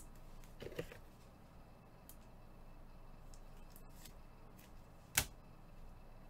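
Gloved hands handling trading cards and their box on a table: a short scrape of card against card just under a second in, faint ticks, and one sharp click about five seconds in, over a low steady hum.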